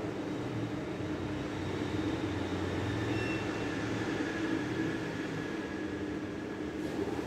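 Steady low hum and rumble of room ambience, with a faint thin tone above it and no distinct events.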